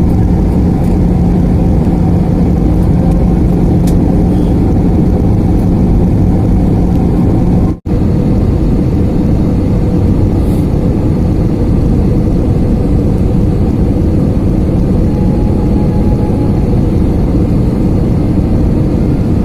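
Steady jet airliner cabin noise, a loud rush of engines and airflow with a low hum. It breaks off for an instant about eight seconds in, where the recording cuts, and then goes on.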